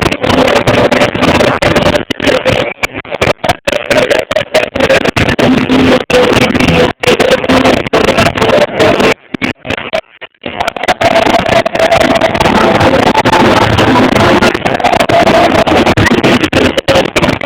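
Live music recorded badly: loud, distorted and overloaded, with sustained notes and a constant harsh haze. The sound drops out briefly again and again, and almost completely for about a second around the middle.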